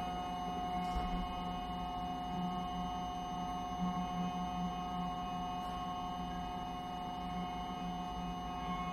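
Sustained electronic drone from live electronics in a piece for cello and laptop: several steady held tones, over a lower tone that gently swells and fades.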